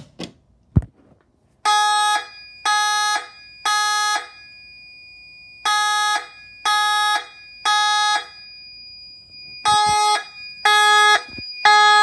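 Federal Signal Vibratone fire alarm horns sounding in temporal code-3: three half-second buzzing blasts, a pause, then the pattern again, three rounds in all. A sharp click from the pull station being pulled comes just under a second in, and a faint steady high whine carries on between the blasts.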